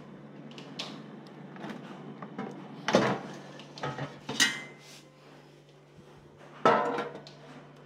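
Lock&Lock air fryer's basket being pulled out and handled: metal clunks and rattles, loudest about three seconds in and again near the end, over a low steady hum.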